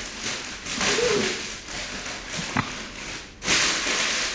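Rubbing, scraping noise in irregular swishes, with a louder, longer one starting about three and a half seconds in.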